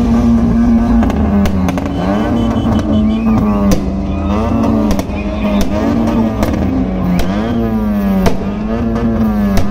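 Modified car engine held at high revs while drifting on dirt, its pitch sagging and climbing back again about every one and a half seconds as the throttle is worked. Loud exhaust, with scattered sharp cracks.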